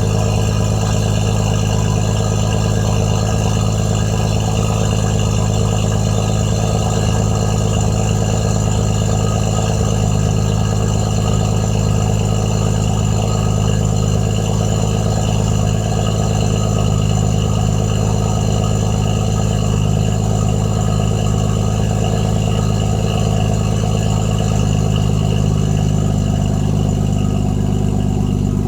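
BMW M140i's turbocharged 3.0-litre straight-six idling steadily, its exhaust running through a decat downpipe and the stock rear silencer.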